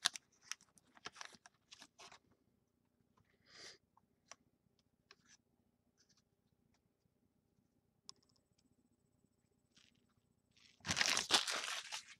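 Foil trading-card pack wrapper crinkling and rustling as it is handled and torn open, with sparse card-handling ticks and long quiet gaps. Near the end comes a louder rustle lasting about a second.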